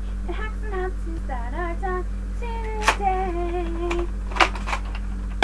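A girl humming a tune, with a long held note in the middle. A few sharp clicks from a plastic toy blaster being handled, the loudest right at the end.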